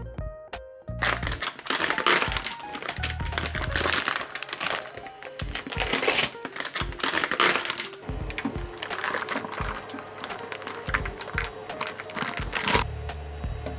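Clear plastic bags around 3D-printer filament spools crinkling and tearing as they are pulled open by hand. The crackling starts about a second in and stops abruptly near the end. Background music plays under it.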